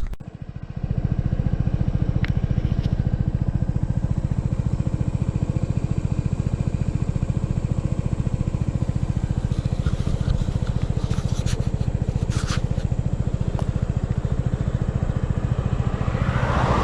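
Suzuki Burgman 200 scooter's single-cylinder engine starts up abruptly about a second in, then runs steadily with an even, rapid pulse while the scooter is under way.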